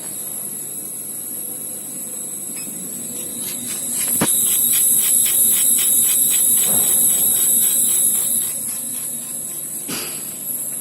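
Laser cutting and engraving machine running: a steady high hiss that swells about four seconds in and eases again about four seconds later, with a quick run of ticks while it is loudest. A sharp knock comes just after the swell begins, and another near the end.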